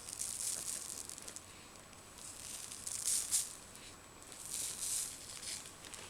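Green-dyed salt sprinkled by hand over wet PVA glue on a bottle: a dry, grainy hiss of falling grains in three short spells.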